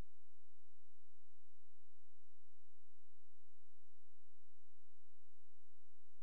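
A steady, unchanging pure tone with a low hum beneath it and a faint high whine. There are no ball or cue clicks.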